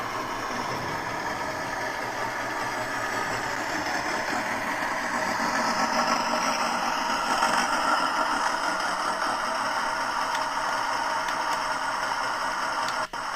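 Steady engine-like running with a rattle, swelling a little around the middle and cutting out abruptly near the end.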